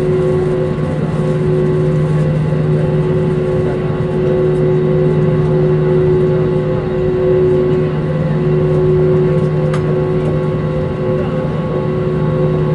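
Cabin noise inside an Airbus A320 taxiing after landing: the jet engines at low taxi power make a loud, steady hum with several constant tones, mixed with airflow and rolling noise.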